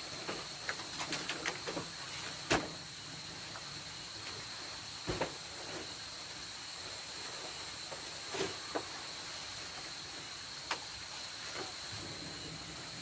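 Steady high-pitched chorus of night insects in a rice field, holding two fixed pitches. Scattered light clicks and knocks sound over it, several in the first two seconds, and the sharpest about two and a half seconds in.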